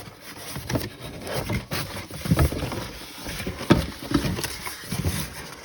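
Unpacking sounds: rustling packaging and irregular knocks and clicks as a boxed kitchen machine is handled, with a few sharper knocks in the middle.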